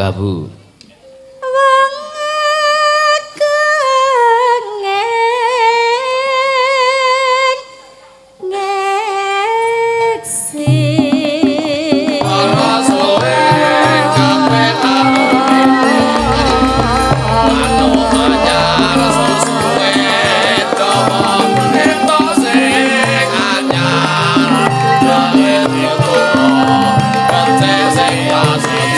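A woman sings a Javanese song into a microphone, opening with a solo vocal line with a wide vibrato. About ten seconds in, the gamelan ensemble comes in and she goes on singing over it, with a deep low boom sounding around sixteen seconds.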